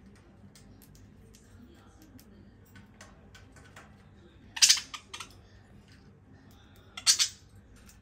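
Budgerigars giving two short, harsh squawks, one about halfway through and one near the end, over light ticking of beaks and claws on the wire cage bars.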